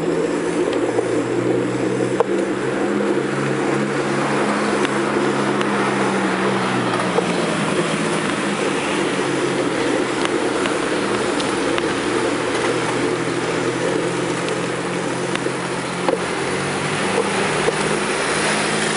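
Steady engine hum of a vehicle on the move, with road and wind noise and a few faint ticks.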